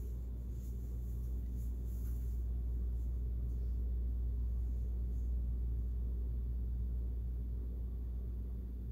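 Steady low hum of background room noise, with a few faint soft rustles in the first two seconds.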